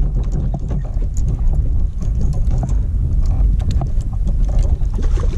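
Wind buffeting the action camera's microphone, a loud, unsteady low rumble, with scattered light clicks and taps through it.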